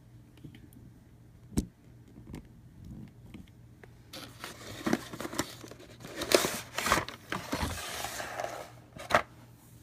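Cardboard game box being opened and its contents handled: a single sharp click about a second and a half in, then irregular rustling and crinkling of plastic-wrapped contents with a few louder scrapes.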